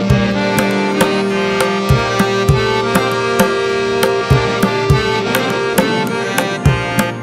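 Instrumental background music: a steady percussion beat of quick hand-drum strokes over held, sustained notes.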